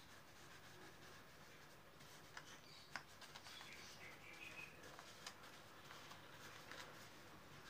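Near silence with the faint scratch and tap of a paintbrush dabbing paint onto paper, with a few light ticks.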